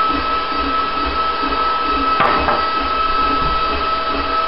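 Steady mechanical hum with a constant high whine, and a single sharp click about two seconds in.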